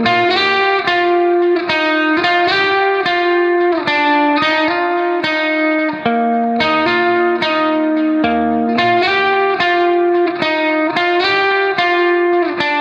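Background music: a plucked guitar melody of evenly paced notes.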